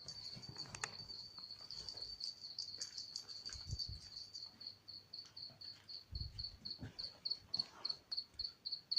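A high, thin chirping from an unseen source, heard in a room at night: first an almost unbroken trill, then from about halfway through it settles into regular short chirps, about three a second. A few faint low thumps sound underneath.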